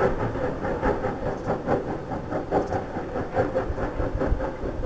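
Steam locomotive running, with a quick, even beat of chuffs, about five a second.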